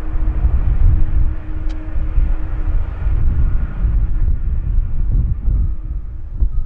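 Jet airliner engines rumbling as an aircraft arrives, a loud, uneven low rumble with a faint steady whine through it.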